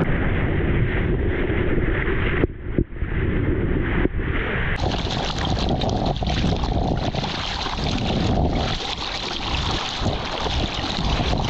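Muffled churning water heard with the action camera underwater. About five seconds in the camera surfaces, and from there a surfboard pushing through the water gives a steady rush of splashing water, with wind on the microphone.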